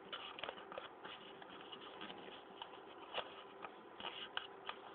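Sheet of paper being folded and creased by hand, with irregular crinkles and sharp crackles as the folds are pressed, over a faint steady hum.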